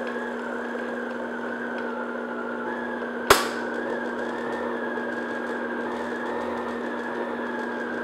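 Stand mixer motor running steadily on low speed, its paddle beating flour into cookie dough, with one sharp click a little over three seconds in.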